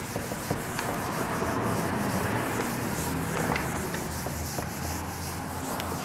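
A whiteboard being wiped with an eraser: a continuous scrubbing rub across the board, with a few faint taps.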